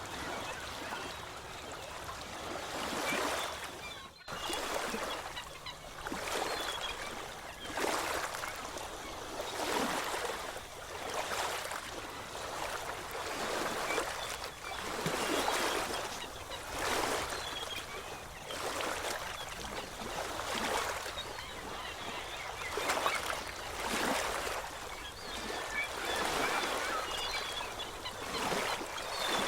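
Small waves washing in and out, a hiss that swells and falls away about once every one and a half to two seconds, with a faint fizz of foam.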